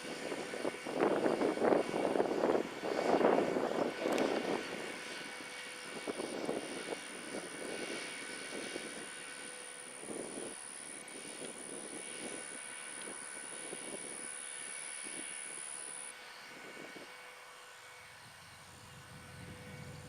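Farm tractor engine running as it works the field with a planter, loudest with surging swells over the first few seconds, then fading away.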